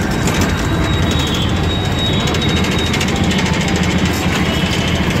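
Auto-rickshaw engine running steadily under way, a dense low hum with a rapid, even pulsing beat.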